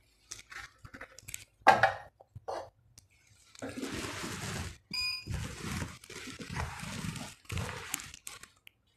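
Handling noise: a clunk about two seconds in as a plate is set down on the stovetop, then several seconds of rustling and scraping as the handheld phone camera is moved and repositioned.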